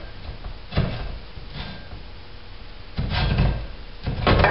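Cast-metal halves of a mower transaxle case being slid and seated together: a few irregular knocks and scrapes of metal on metal, the loudest near the end.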